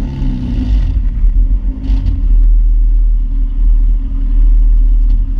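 1995 BMW E36 M3's straight-six heard at the exhaust tips, with the cat and resonator deleted and the insulation taken out of the stock muffler. The revs drop back in the first second, then the engine settles into a steady, loud idle.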